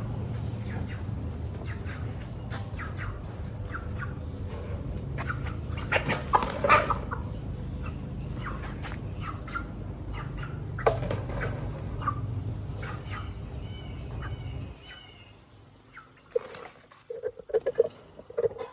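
Chickens clucking and calling amid scattered knocks and rustling over a steady low rumble, which stops about three-quarters of the way through. Just before the rumble stops comes a quick run of short, high chirps.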